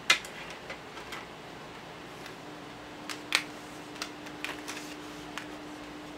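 Scattered light clicks and taps of small hard objects, a sharper one right at the start and another about three seconds in, over a steady hiss. A faint steady hum comes in about halfway.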